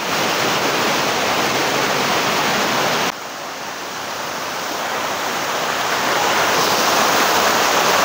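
Steady rushing of water cascading over tiered limestone terraces of a waterfall. The level drops suddenly about three seconds in, then grows gradually louder.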